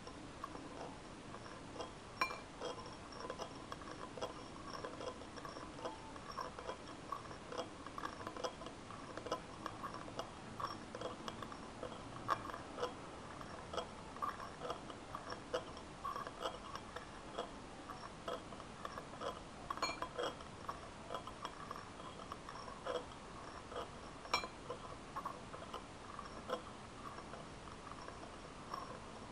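Metal spoon stirring liquid in a glass dish, clinking and scraping against the glass in a run of light, irregular ticks, with a few sharper clinks.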